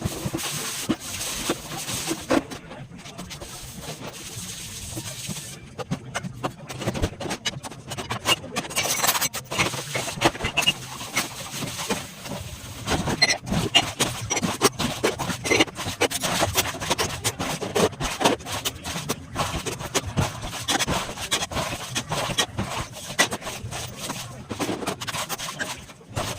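Hands rubbing and scraping through small dried omena fish in a container, an irregular run of small clicks and rasps while the fish are picked over and cleaned.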